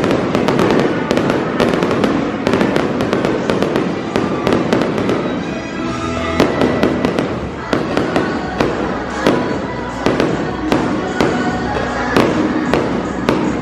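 Fireworks going off: a rapid, irregular string of sharp bangs and crackling pops over a steady rush, with music playing underneath.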